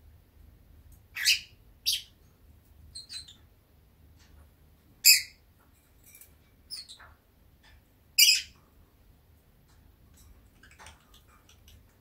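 Pet lovebird chirping: short, sharp, high chirps and squeaks at irregular intervals about a second or two apart, the loudest two near the middle and about two-thirds of the way through.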